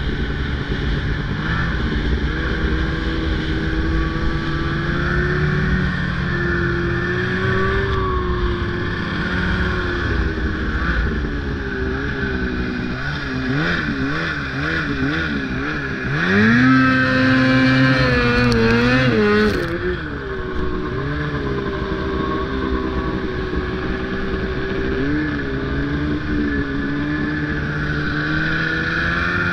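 Snowmobile engine running under changing throttle while riding through deep snow. Its pitch rises and falls with quick throttle blips about halfway through, then climbs to a louder, higher rev for about three seconds before easing back.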